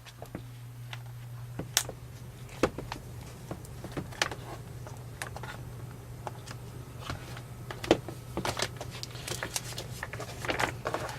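Rubberized outer layer of a Gumdrop Drop Tech Series tablet case being pried and pulled off by hand: irregular clicks, snaps and scrapes of rubber and plastic, busier and louder near the end, over a steady low hum.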